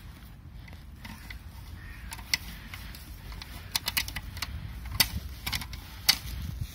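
Scattered sharp clicks and light metallic rattles, sharpest about five and six seconds in, from the steel bicycle rack, its spring clamp and the bungee-cord hooks moving under a strapped-on backpack, over a steady low rumble.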